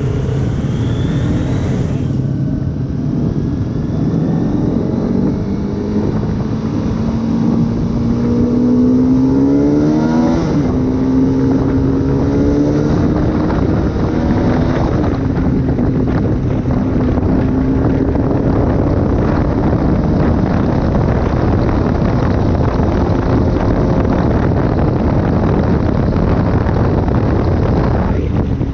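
Motorcycle engine running at road speed with wind rushing past. The engine note climbs steadily as it accelerates, drops sharply at a gear change about ten seconds in, then holds fairly steady.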